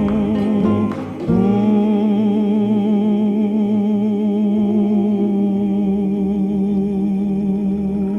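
A song with a singer holding one long note with a slight waver, starting about a second in after a short break.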